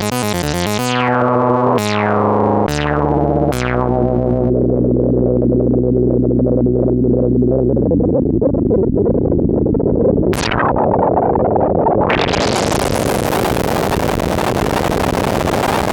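Behringer MS-101 analog monophonic synthesizer: five plucky notes about a second apart, each with a quick filter decay, then a held low note that turns into a rushing noise. A short filter sweep comes around ten seconds in, and the filter then opens wide into bright hiss near the end.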